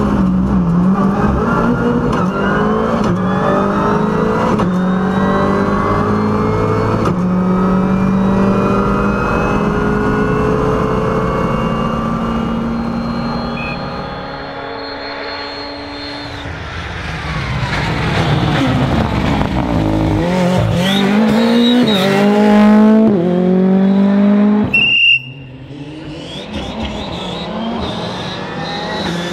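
Ford Fiesta R5 rally car's turbocharged 1.6-litre four-cylinder heard from inside the car. It revs up through the gears again and again, each rise in pitch broken off by a quick gear change, eases off around the middle, then accelerates hard once more. About 25 seconds in, the sound cuts abruptly to a rally car heard from outside as it approaches on the stage.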